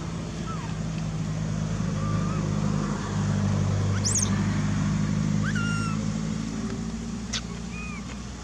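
A motor vehicle engine running steadily, swelling in loudness a few seconds in and then easing off, as if passing close by. A few short, high chirps sound over it in the second half.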